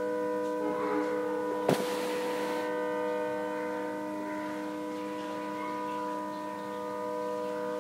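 Train horn sounding one long, steady blast of several tones at once. A short click and hiss come about two seconds in.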